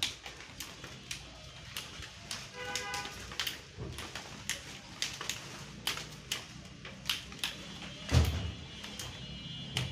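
Leaves being broken off a cut banyan branch by hand: a run of short, sharp, irregular snaps of the leaf stalks as the branch is stripped to prepare it as a cutting. A dull thump about eight seconds in is the loudest sound.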